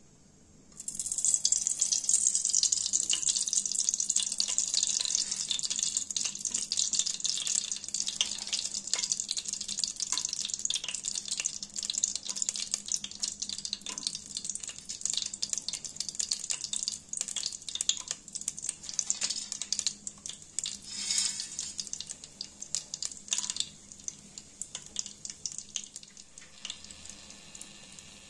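Whole spices (cinnamon sticks, cardamom pods, bay leaves) sizzling in hot oil in an aluminium pot. A hiss with scattered crackles and pops starts suddenly about a second in and slowly dies down.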